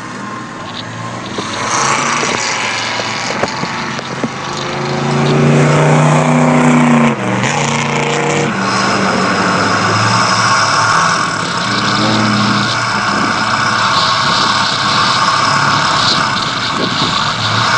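Car engine revving, its pitch rising then dropping about seven seconds in, followed by steady road and wind noise as the car drives off at speed.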